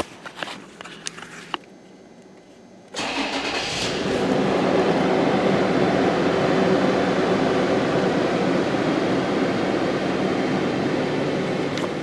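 A 2014 Toyota 4Runner's 4.0-litre V6 starts up about three seconds in and settles into a steady idle, with the engine misfiring on cylinder 4. A few light handling clicks come before it.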